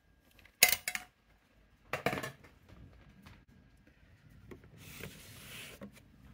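Clear plastic insect breeding case being handled and opened: two sharp clatters of the plastic lid, the first the loudest, then a brief scraping rustle about five seconds in.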